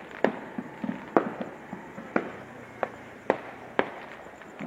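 Fireworks and firecrackers going off in a string of sharp bangs at uneven intervals, roughly one a second, each trailing off briefly.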